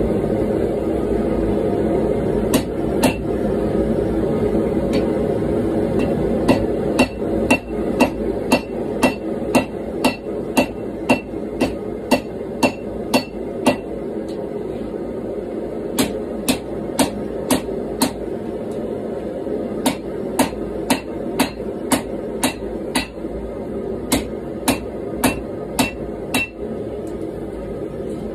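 A hand hammer strikes a hot gomai billet of wrought iron, nickel and 1095 steel on a steel anvil. The blows come about two a second in runs with short pauses, and each one rings briefly. Under them the gas forge burner makes a steady rushing noise.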